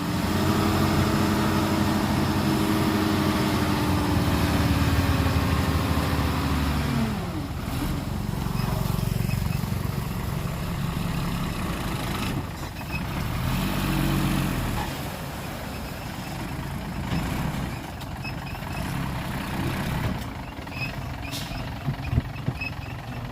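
Heavy diesel earthmoving machinery running under load. A strong engine drone falls away about seven seconds in, surges again for several seconds, then settles to a quieter rumble with a few sharp clicks near the end.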